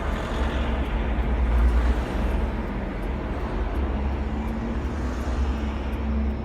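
Road vehicle noise: a steady rumble of motor traffic on the road, heaviest in the low bass.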